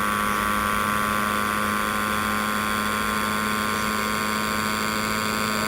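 Steady machine hum made of several constant tones, with no change in pitch or level.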